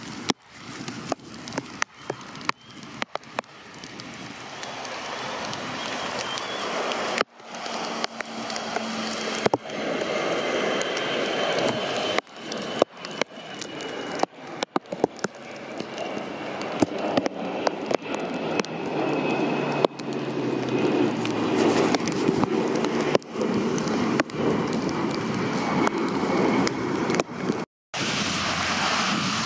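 Jet airliner engines running with a faint high whine, their noise swelling louder, mixed with the hiss of heavy rain and wind. The sound is broken by many brief crackling cutouts.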